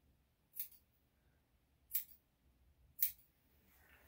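Three sharp snips of a hand grooming cutter at a Yorkshire Terrier's foot, about a second apart.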